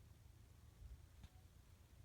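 Near silence with a faint low rumble and one faint click a little after a second in.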